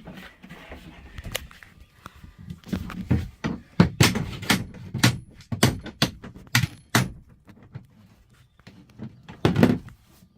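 Irregular hard knocks and thuds, about eight of them, bunched in the middle with one more loud one near the end: things being bumped and set down during work in a truck cab.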